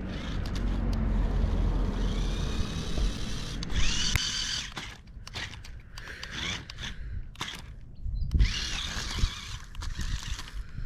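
A toy RC crawler's small electric drive motor whines in two bursts as the car drives over ground. A few sharp knocks come with the bursts. The car has no speed controller, so the motor is either fully on or off, and each burst runs at full speed.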